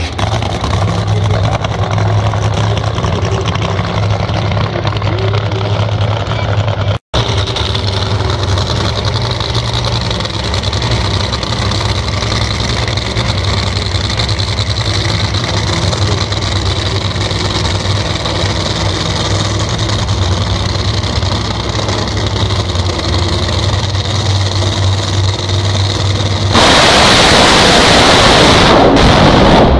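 Supercharged nitromethane funny car V8 idling steadily with a deep, even hum, with a brief break in the sound about seven seconds in. About three seconds before the end it launches at full throttle, much louder, for roughly three seconds. This is the run in which the engine went bang and caught fire.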